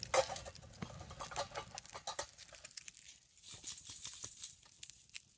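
Irregular light rustling, crinkling and small clicks of camp gear being handled and packed away.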